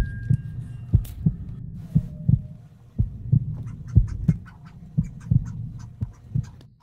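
Heartbeat sound effect: low double beats, lub-dub, about once a second over a steady low hum.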